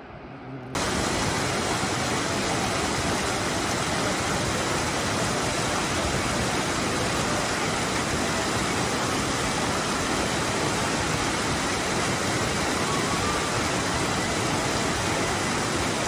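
Mountain stream rushing over rocks: a loud, steady rush of whitewater that starts suddenly just under a second in.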